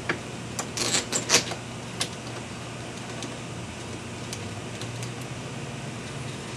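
Light metallic clicks and scrapes of deadbolt hardware being handled as the mounting screws are passed through the thumb-turn plate and started into their threads, a quick cluster in the first two seconds. A steady low hum sits under it throughout.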